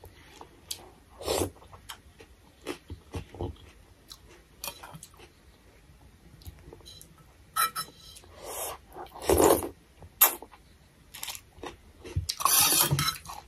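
Close-miked eating: a steel spoon clinking and scraping in a stainless-steel bowl of noodle soup, with sipping and chewing. These come as many short separate sounds, with a couple of longer, louder ones in the second half.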